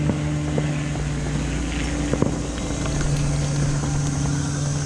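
An engine running steadily at a low, even pitch, dipping for a moment about halfway through, with a few scattered short knocks over it.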